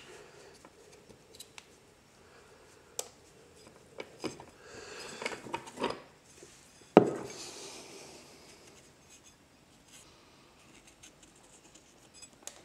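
Metal automatic-transmission parts being handled on a workbench: scattered light clicks, scrapes and knocks, the loudest a sharp clank about seven seconds in.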